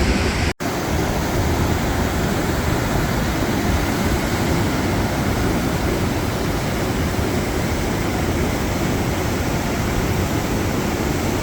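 Waterfall roar: a loud, steady rushing of falling water, heaviest in the low range, with a split-second cut-out about half a second in.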